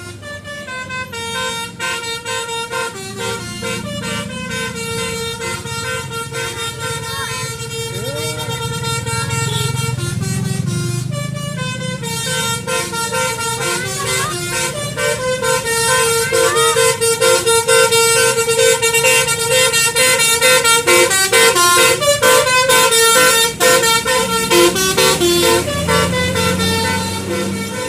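Indonesian bus 'telolet basuri' musical air horns playing a fast melody of short notes that step up and down in pitch, over a low rumble. The horns grow louder about halfway through.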